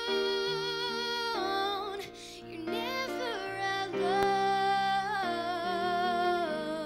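A solo female vocalist sings a slow ballad into a microphone. She holds a long note with vibrato, then sings a wavering run and another held note, without clear words, over sustained accompaniment chords that change every second or so.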